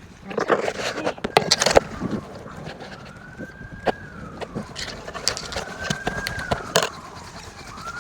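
A distant emergency-vehicle siren wailing in slow rises and falls, roughly every two and a half seconds. Over it come sharp snaps and rustling of branches, thickest in the first two seconds, with another loud snap near the end.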